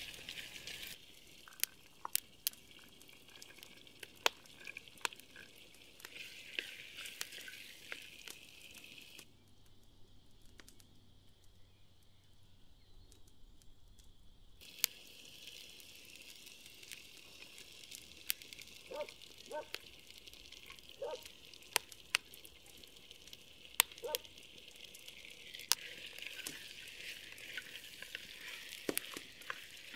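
Food sizzling in a pot over a charcoal fire as a wooden spoon stirs it, with frequent sharp clicks and taps. The hiss drops away for a few seconds in the middle, then returns.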